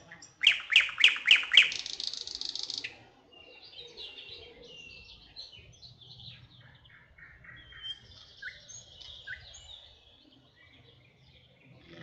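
Songbirds singing: a loud song of about five sharp descending notes running into a rapid trill about half a second in, then softer, varied chirps and short calls.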